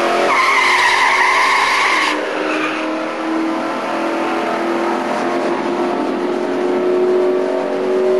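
Drag-racing cars at full throttle running down the quarter-mile, one being a 1967 Mustang GTA with a 390 V8. A high squeal sounds over the first couple of seconds. The engine note drops once about two seconds in, then climbs steadily as the cars run on.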